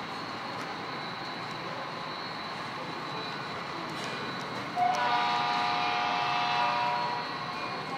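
HO-scale model diesel locomotive's horn sound, a multi-note chord that comes on suddenly about five seconds in and holds for a little over two seconds. It sounds over the steady running noise of the model trains.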